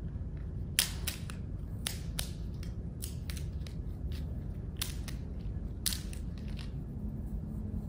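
Communion wafers being snapped and broken by hand: a dozen or so crisp, sharp snaps, often in pairs, the loudest about a second in, over a low steady room hum.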